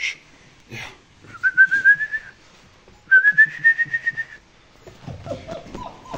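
Two long, steady whistles, each about a second long and slightly rising, whistled to a puppy. Near the end the puppy answers with short, falling whimpers.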